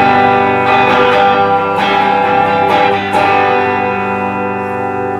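Electric guitars strumming chords through amplifiers and letting them ring, with a few fresh strums in the first three seconds, then a held chord that slowly fades.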